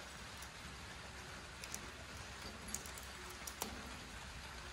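Faint clicks and taps of a puppy chewing at a wire exercise pen and its rubber floor mat, a few scattered ticks over a steady background hiss.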